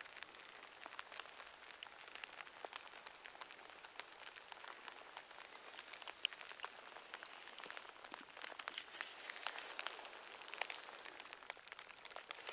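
Light rain: a soft hiss with scattered faint ticks of drops landing at irregular intervals.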